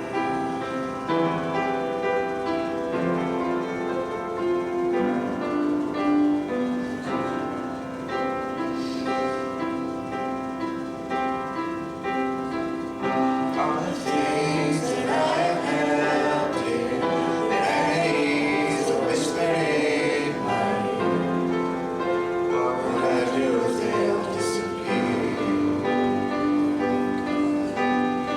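Worship music: a piano plays alone at first, and about halfway through a group of voices joins in singing a hymn with it.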